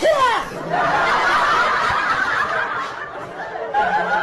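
People laughing and snickering, beginning with a loud outburst and going on as a dense stretch of laughter.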